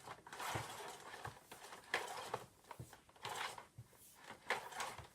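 Handling noise from an old Dyson DC05 vacuum cleaner's flat mains cable being worked: irregular rustling and scraping with scattered clicks and knocks.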